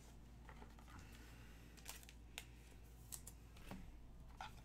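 Near silence with a handful of brief, faint clicks and rustles of trading cards being handled.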